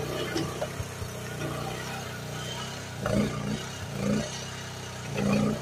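Groundhog KH14G mini excavator's engine running steadily as the machine travels on its tracks, with three short louder swells in the second half.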